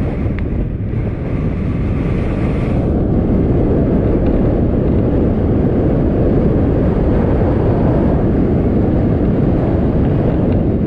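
Heavy wind buffeting on an action camera's microphone from a mountain bike descending a paved road at over 20 mph: a loud, dense, low rush without pitch.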